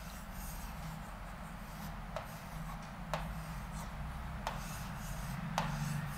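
A pen drawing on the surface of an interactive display screen: a faint scratching as strokes are drawn, with a few sharp taps about a second apart as the tip touches down.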